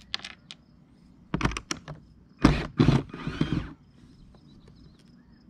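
Hand tools working against the plastic windshield: a few sharp clicks at the start, then a cluster of clicks and two loud scraping bursts in the middle.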